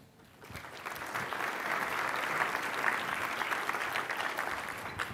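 Audience applauding. The clapping builds up over about the first second, holds, and dies away near the end.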